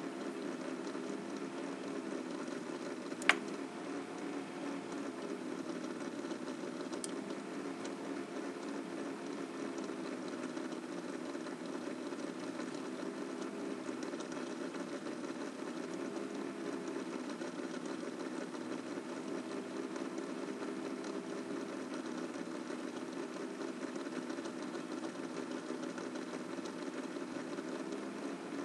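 Sony VAIO laptop making a steady buzzing, machine-like noise, its pitch wavering in slow waves every few seconds. A sharp click comes about three seconds in. The owner notices the noise gets loud when the CPU is at 100%.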